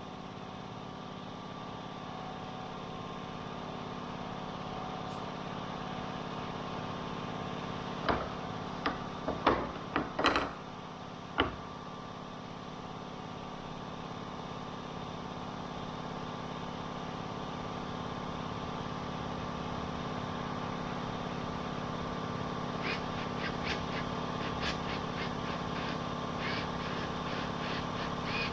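Steady machinery hum made of several constant tones. A handful of sharp clicks and knocks comes about eight to twelve seconds in, and lighter ticks come near the end.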